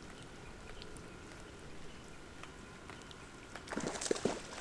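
Quiet lakeside ambience with faint lapping water and a faint steady high tone. A short burst of bird calls comes about four seconds in.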